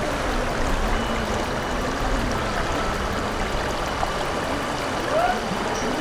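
Shallow river flowing over a stony bed: a steady rush of water.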